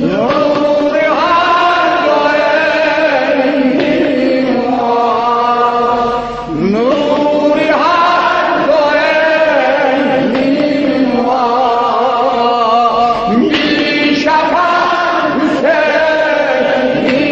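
A solo male voice sings an elegy in Azerbaijani for Imam Hussain, a chanted lament. It comes in three long, ornamented phrases, each opening with a rising swoop in pitch.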